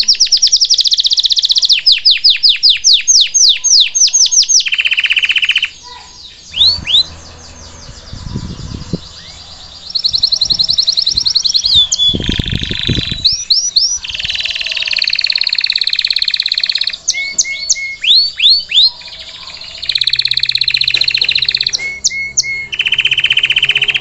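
Red canary singing: long rolls of fast repeated notes, some of them sweeping sharply up or down, with a break of a few seconds about a quarter of the way through.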